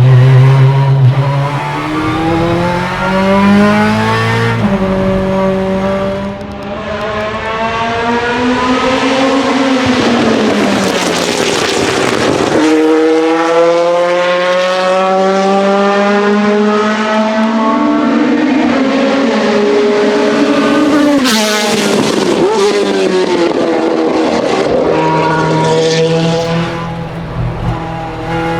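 Ferrari F430 GTC/GT2 race car's naturally aspirated 4.0-litre V8 under hard acceleration, revs climbing and dropping sharply at a gear change about five seconds in. The revs then fall away and climb again twice, with a sharp crack about twenty-one seconds in as they drop, then settle near the end.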